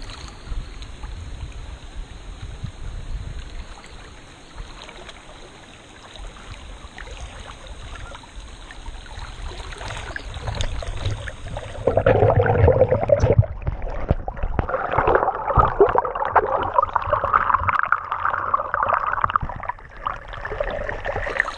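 Shallow hot-spring creek water gurgling and splashing right around a camera held at the water's surface while drifting down the narrow channel. About halfway through it grows louder and more muffled.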